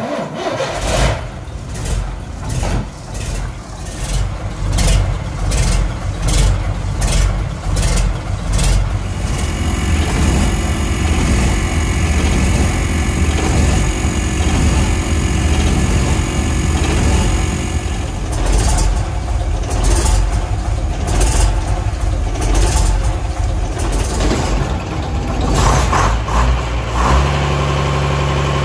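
Gardner 180 six-cylinder diesel engine of an Atkinson lorry starting up and running, irregular and knocking for the first several seconds, then settling into a steady idle.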